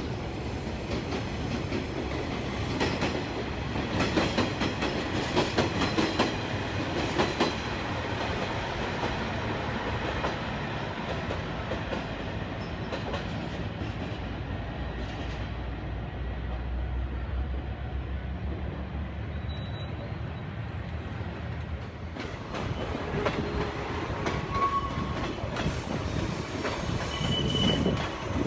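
Diesel railcar train passing, its wheels clacking over the rail joints, loudest in the first few seconds; a steady low engine drone follows in the middle.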